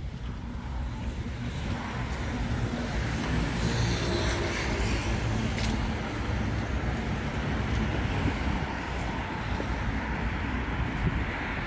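City street traffic: a steady wash of road noise from cars and other vehicles driving past.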